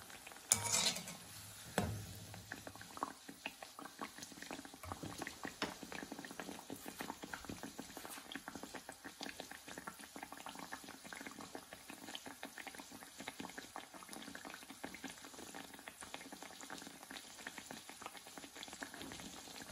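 Teler pitha, a rice-flour and jaggery batter cake, deep-frying in hot oil in a wok, the oil bubbling and crackling steadily around the puffed-up cake. Near the start there is a louder metallic scrape and then a sharp click as the wire skimmer is taken away from the pan.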